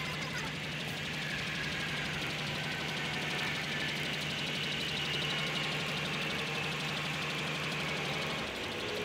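Engine of a flatbed boom truck running steadily as its hydraulic knuckle-boom crane lifts a pallet of shingles onto a roof, with a faint whine that slowly rises and falls. The low hum changes near the end as the load is set down.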